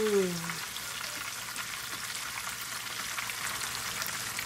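Pieces of boneless chicken breast frying in hot oil in a pan: a steady sizzle with scattered small crackles.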